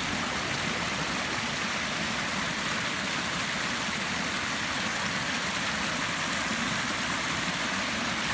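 Rain-swollen stream of storm runoff rushing through a driveway culvert and pouring over a small drop: a steady, even rush of water.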